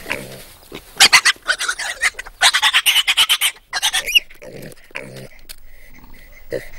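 Piglets squealing in loud runs of short cries, about a second in and again from two and a half to three and a half seconds in, then a few lower grunts near five seconds.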